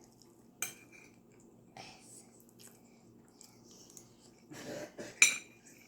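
Eating sounds: quiet chewing with a few scattered small clicks, and a sharper click a little after five seconds.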